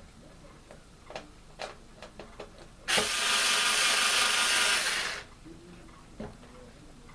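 Light clicks and knocks of box fan parts being handled, then a loud, even rasping noise that starts sharply about three seconds in and lasts about two seconds, followed by a single knock.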